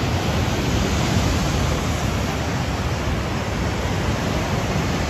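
Steady rushing noise of ocean surf breaking on the beach, mixed with wind.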